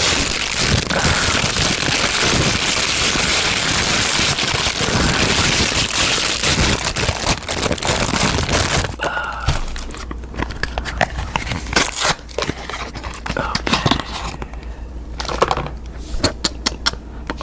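Soap packaging being handled and opened close to the microphone: dense crinkling and tearing for about the first half, then scattered sharp crackles and clicks.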